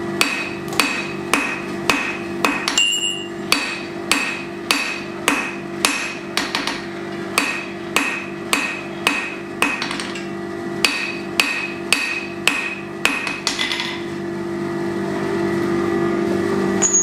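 A hand hammer striking steel on an anvil in a steady rhythm, a little under two blows a second, each blow with a short metallic ring. The blows stop about thirteen seconds in, leaving a steady low hum.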